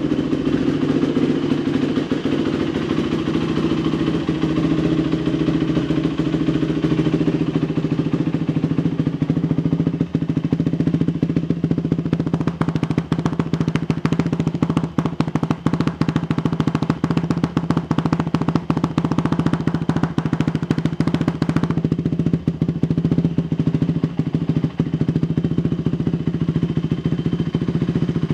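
2001 Yamaha YZ426F's 426 cc four-stroke single-cylinder engine idling steadily while it warms up after a cold start.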